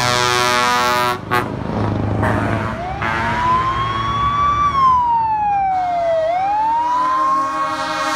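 Truck air horns blaring for about a second, then a siren wailing slowly up and down, with steady horn tones sounding again near the end.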